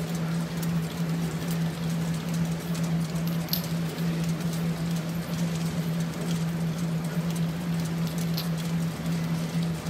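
Resina NRC-40 inline capping machine running empty containers: a steady low hum with scattered light clicks and rattles.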